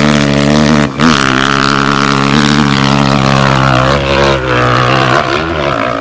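Dirt bike engine revving hard and held high at a nearly steady pitch, with a brief drop and recovery about a second in, then wavering revs after about four seconds as it climbs a steep hill.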